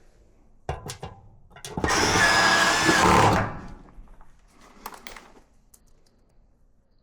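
A few clicks, then a small motor whirs loudly for about a second and a half and stops.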